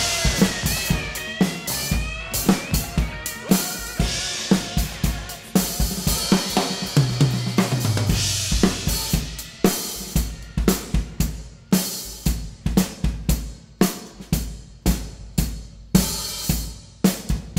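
Sonor acoustic drum kit played with sticks: bass drum, snare, hi-hat and cymbals keeping a steady dance beat over a recorded pop-rock backing track. The backing music falls away about ten seconds in, leaving mostly the drum strikes on their own.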